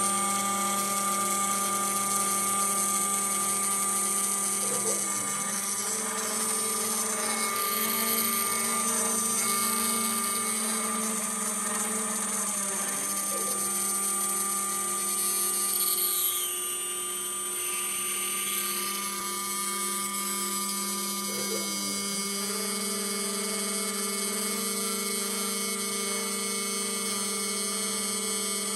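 CNC router milling an aluminum plate with a small end mill: a steady spindle whine over the cutting. The motor pitch sweeps down and back up about every eight seconds as the machine changes direction.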